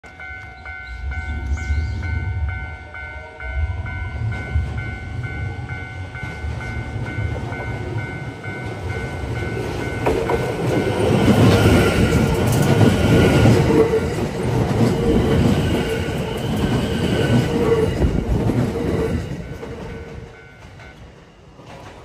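Kintetsu 8A series electric train approaching and passing close by, its wheels rumbling and clattering on the rails, loudest in the middle and fading near the end. A level crossing alarm rings in a steady repeating pattern throughout and stops near the end.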